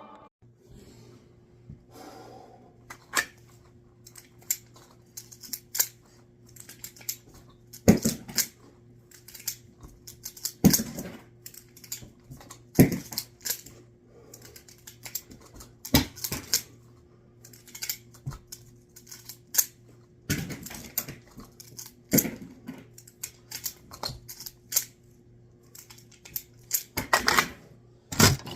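Smith & Wesson 929 revolver being dry-fired: a sharp metallic click of the hammer falling on an empty chamber every two to three seconds, with quieter clicks of the trigger and turning cylinder between them.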